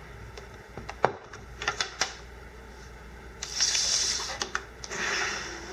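A few light clicks and taps of small items being handled on a tabletop. Then, twice, the crinkling rustle of a jig's plastic blister package being picked up and moved.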